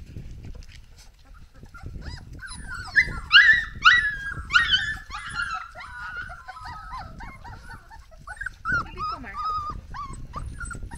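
Dalmatian puppies whimpering and squealing in short, high, falling whines. The loudest run of whines comes about three to five seconds in, and smaller squeaks follow after it.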